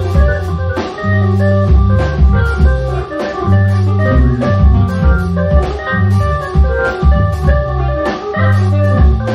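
Instrumental jazz trio music: sustained organ chords over a deep, moving bass line, with drums keeping a steady beat.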